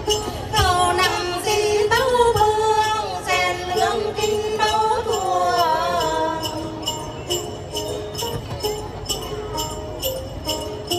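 Hát then performance: voices singing a melodic line from about half a second in until around six and a half seconds, over plucked đàn tính lutes and a shaken cluster of small bells (xóc nhạc) keeping a steady beat. After the singing stops, the lutes and bells carry on alone.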